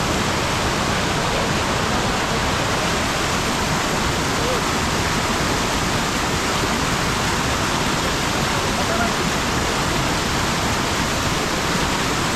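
Loud, steady rush of fast-flowing mountain water, an even hiss and rumble that does not let up.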